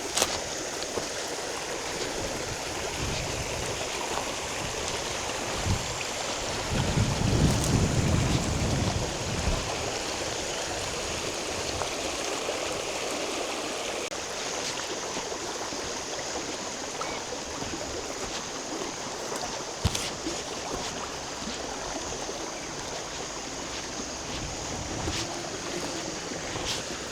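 Steady rushing noise of flowing water, with a brief low rumble about seven seconds in.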